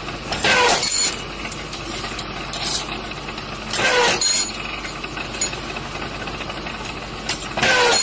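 Industrial machine running steadily, with three loud bursts of a working stroke, each carrying a short falling squeal: about half a second in, about four seconds in, and near the end.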